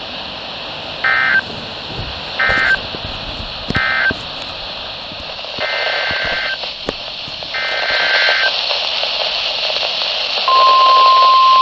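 Emergency Alert System audio over a steady radio hiss. First come three short bursts of screechy digital data tones, the end-of-message code. Then come two longer data bursts of the next alert's header. About ten seconds in, the steady 1050 Hz NOAA Weather Radio warning tone begins.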